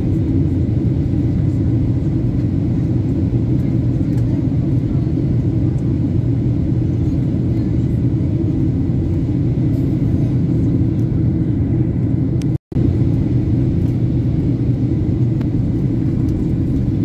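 Passenger airliner cabin noise: a steady low rumble of engines and airflow with no change in pitch or level, cut off for a split second about three-quarters of the way through.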